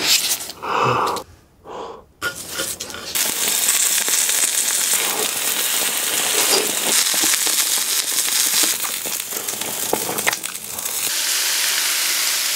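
Close-miked mukbang eating sounds: beef tongue crackling and sizzling on a small charcoal grill mixed with chewing, thick with sharp crackles, settling into a steady hiss near the end.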